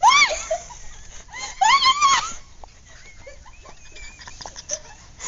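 A person's high-pitched screams: one loud scream right at the start and a second about two seconds in, each rising and falling in pitch, followed by quieter sounds.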